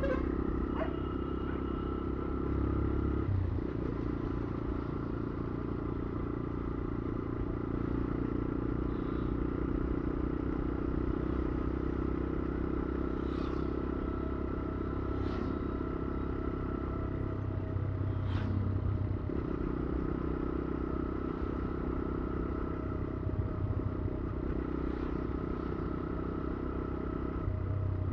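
Motorcycle engine running steadily under way, its note shifting a few times as the rider changes speed, with a few faint short clicks or clatters in the middle.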